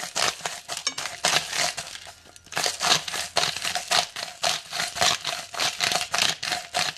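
Salt being ground from a bottle-style salt grinder over apple slices in a frying pan: a rapid run of short crunchy rasping strokes, several a second, with a brief pause about two seconds in.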